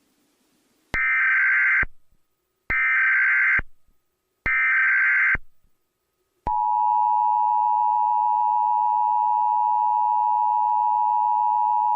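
Emergency Alert System header: three short bursts of data tones, about a second each and evenly spaced (the SAME header). About halfway through, the steady attention tone starts and holds, signalling that an alert message is about to be read.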